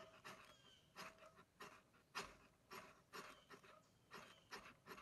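A knife blade scraped again and again along a magnesium fire-starter block's flint striker, about two rasping strokes a second, throwing sparks into a pile of dry leaves and tinder.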